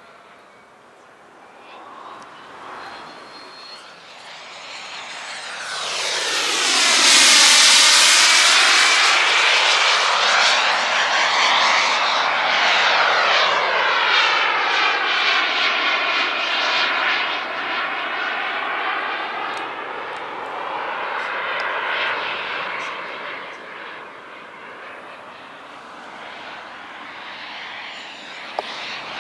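The JetCat P100-RX model jet turbine on a radio-controlled Swift S-1 glider, heard as a jet whine and hiss from the passing model. It swells loudest about seven seconds in with a sweeping, phasing quality as it goes by, eases off, swells again more softly a little past twenty seconds, then fades.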